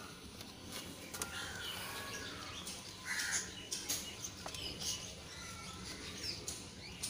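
Scattered crackling and rustling of a thin plastic drink bottle being pressed down into a pot around grass-like leaves, with birds chirping in the background.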